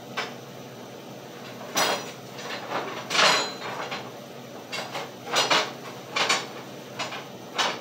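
Steel pieces clanking and knocking against a steel fabrication table: about eight irregular metallic knocks, each with a short ring, the loudest a little past three seconds in.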